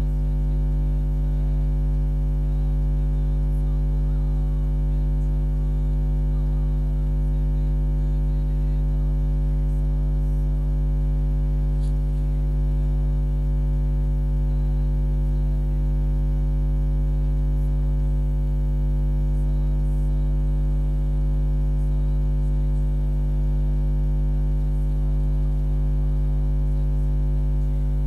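Steady electrical mains hum: a constant low drone with a stack of even overtones above it that never changes.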